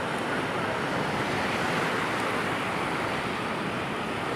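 Sea surf: a steady rush of waves washing onto the beach.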